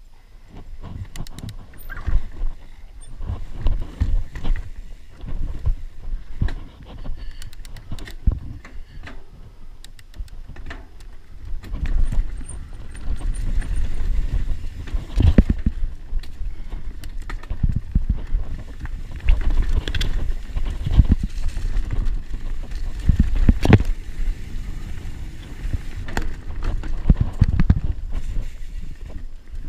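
Mountain bike riding down a rocky dirt singletrack: a low rumble of tyres on dirt with frequent knocks and rattles as the bike hits rocks and roots. It gets louder and busier about halfway through.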